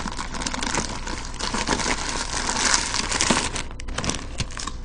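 A paper sandwich wrapper being unwrapped and crumpled by hand: continuous crinkling packed with sharp little crackles.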